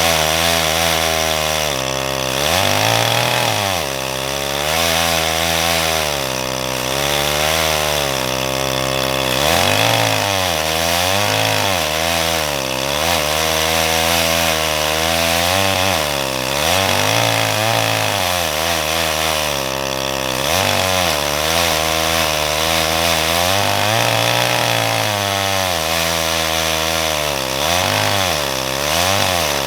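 Farmertec G888 (Stihl MS880 clone) two-stroke chainsaw on a six-foot bar, running hard while milling a slab through a log, the saw still being broken in. The engine note wavers, dipping and picking back up every second or two as the cut loads it.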